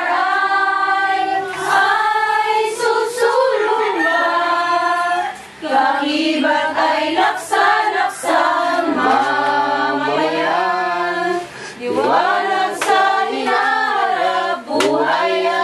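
A group of women singing together without accompaniment, in long held phrases with short pauses between them.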